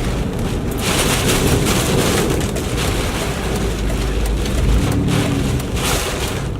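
Hurricane-force wind buffeting the microphone with a heavy low rumble. A rushing hiss of wind-driven rain swells about a second in and again near the end.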